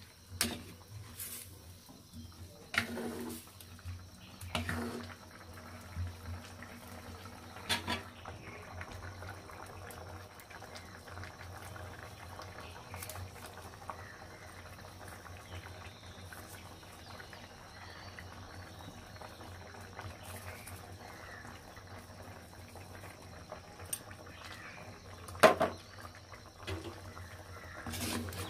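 Curry simmering in a clay pot, with a soft, steady bubbling. A ladle scrapes and knocks against the pot a few times in the first eight seconds and again near the end, the loudest knock about 25 seconds in.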